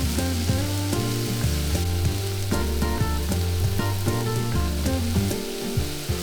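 Food sizzling steadily as it fries in a hot pan, over background music.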